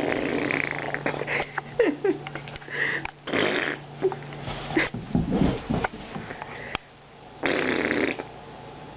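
A dog snoring and snorting: several raspy breaths, each under a second long, with short squeaky noises between them.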